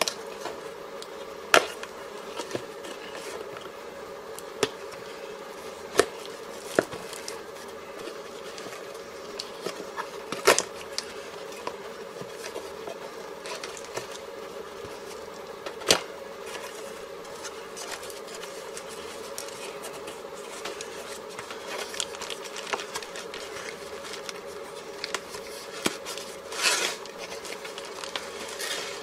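Cardboard parcel being cut open with a pocket knife and handled: sharp snaps and clicks of the box and packing tape every few seconds, then a longer scraping rustle near the end as the packing is pulled out, over a steady background hum.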